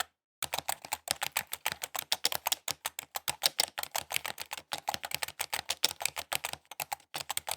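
Quick typing on a computer keyboard: a rapid, uneven run of key clicks, many a second. The typing pauses briefly right at the start and again shortly before the end.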